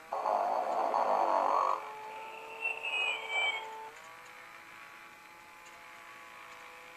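Sing & Snore Ernie talking toy's sound chip playing a snore: a loud rasping snore for about a second and a half, then a whistling note that glides up and down. A steady hum of several tones continues underneath.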